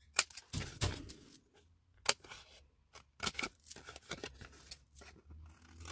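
Scissors snipping through white cardstock: several short, sharp cuts spaced a second or so apart, with faint rustling of the paper between them.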